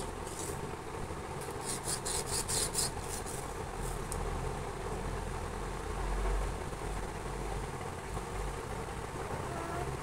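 A felt-tip sketch pen scraped and rubbed quickly along a windowsill: a run of short raspy strokes, about four a second, from about one and a half to four seconds in, over a steady low hum.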